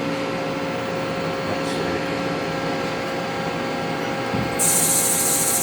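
1996 Haas CNC lathe powered up, giving a steady hum with several whining tones. A little over four seconds in, a loud high hiss starts and keeps going.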